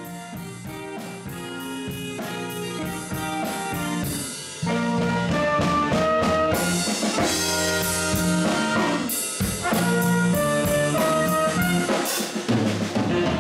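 Small jazz combo playing: a trumpet takes the melody over electric guitar and a drum kit keeping time on the cymbals. The band comes in louder about four and a half seconds in.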